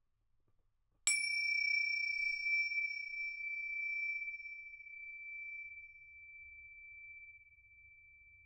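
A small high-pitched metal chime struck once about a second in, its upper overtones dying away within a few seconds while the main tone rings on and slowly fades.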